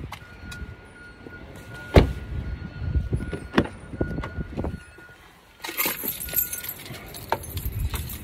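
Handling noise as the phone is carried along: rustling with many small clicks and knocks, a sharp knock about two seconds in, and keys jangling. A faint steady high tone runs through the first five seconds, and a hiss comes in for the last couple of seconds.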